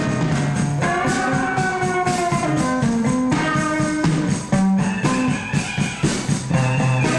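Loose rock jam: electric guitar playing held, shifting notes over a drum kit beat.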